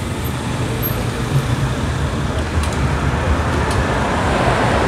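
Street traffic: passing cars keep up a steady road noise, a little louder near the end.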